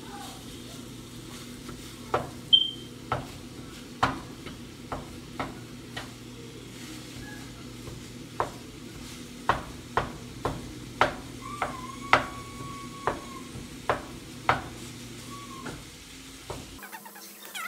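Ground beef sizzling as it browns in a pan, with a utensil stirring it and knocking sharply against the pan about once a second.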